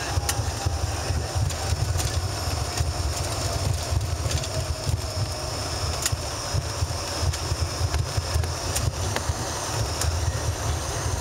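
Cabin noise of an Embraer ERJ-145 rolling on the ground after landing: a steady low rumble from the wheels on the pavement and the engines, with scattered small bumps and jolts.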